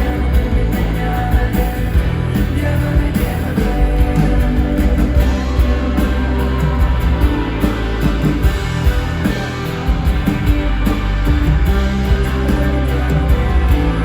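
Live rock band playing an acoustic arrangement, with singing over guitar and a strong, steady bass.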